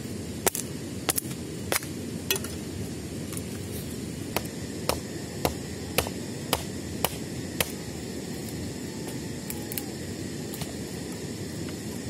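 Steady low rushing of a river, with sharp clicks or taps over it about twice a second for the first seven seconds or so, then only a few.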